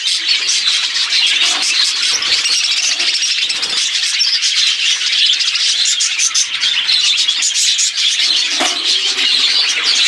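Many budgerigars chattering and warbling together in a dense, continuous stream of high chirps.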